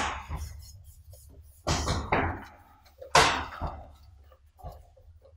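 Sparring gear being handled and strapped on: three sharp slaps, the first two close together about two seconds in and a louder one about a second later, each dying away quickly.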